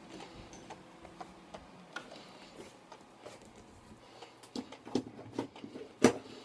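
Scattered light clicks and taps of a smartphone being handled, with a sharper click about six seconds in. A faint low hum sits under the first two seconds.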